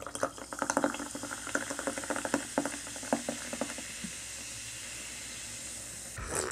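A carbonated drink poured from an aluminium can into a glass. For about four seconds the pour gurgles unevenly, then the bubbles fizz with a steady hiss in the filled glass. A short louder noise comes right at the end.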